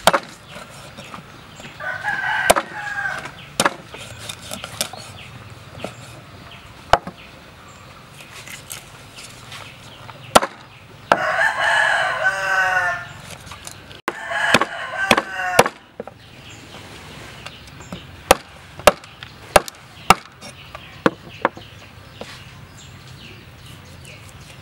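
A cleaver chopping through raw chicken and bone onto a wooden cutting board in about a dozen sharp, irregular strikes, the loudest sounds. A rooster crows about eleven seconds in, with shorter calls about two and fourteen seconds in.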